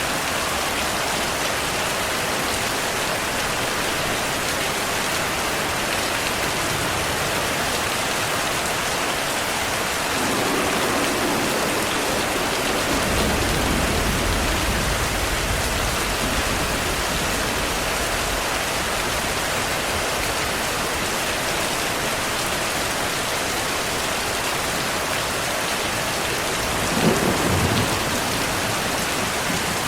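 Steady downpour of rain, with a long low rumble of thunder starting about ten seconds in and a sharper, shorter thunderclap near the end.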